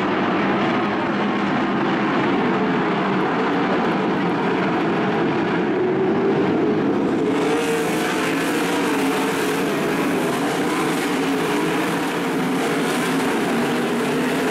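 A pack of 410 sprint cars racing together, their 410-cubic-inch V8 engines running in one continuous loud drone. About halfway through the sound turns brighter.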